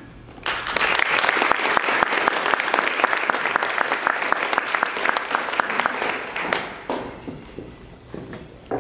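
Audience applauding for a speaker who has just been introduced. The clapping starts about half a second in and fades out over the last couple of seconds.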